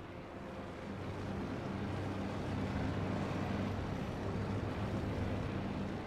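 Sci-fi film sound effect of a starship's engines as it hovers: a low, steady rumbling hum that swells over the first few seconds and then holds.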